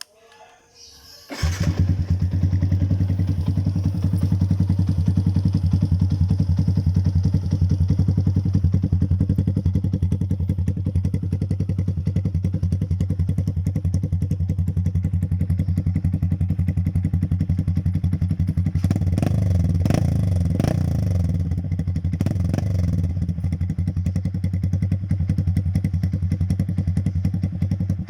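Yamaha Sniper 150 (Y15ZR) single-cylinder four-stroke motorcycle engine breathing through an open Akrapovic exhaust: it fires up about a second and a half in and idles with a rapid, even exhaust beat. About two-thirds of the way through it is blipped a few times and then settles back to idle.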